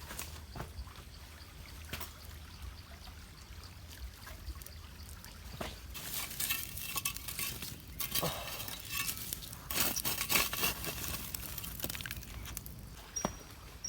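Scattered small knocks and clinks, then two stretches of liquid pouring or splashing, about halfway through and again about two-thirds through.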